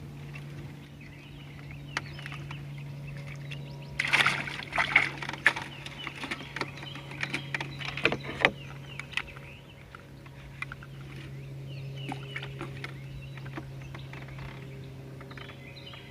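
Fish being handled and weighed: bursts of clattering knocks and rustling about four and eight seconds in, with scattered clicks, over a steady low hum.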